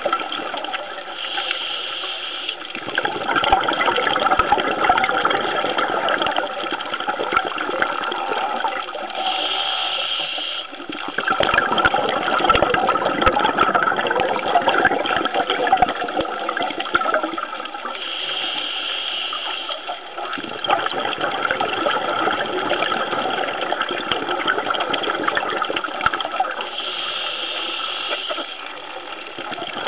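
Underwater recording of a scuba diver breathing through a regulator: a short hissing inhale about every nine seconds, four times, each followed by a long rush of exhaled bubbles.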